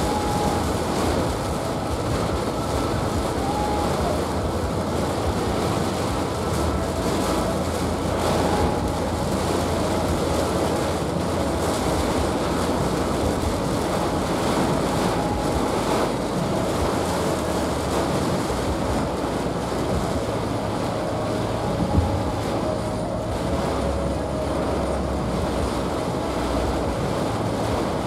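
Heavy rain hammering on a moving car's roof and windshield, heard from inside the cabin over steady tyre and road noise. There is a single brief thump about 22 seconds in.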